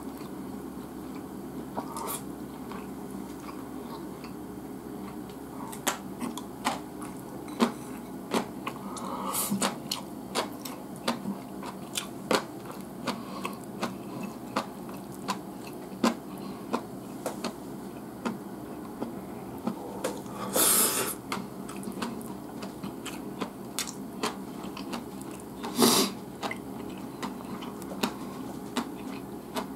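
Eating at the table: chopsticks clicking and tapping against the plate and rice bowl while picking apart grilled flounder and rice, with chewing, over a steady low room hum. Two louder half-second noises come about twenty seconds in and again five seconds later.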